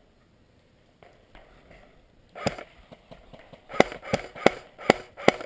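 Airsoft gun firing single shots: one sharp crack about two and a half seconds in, then a quick string of five, about three a second, near the end.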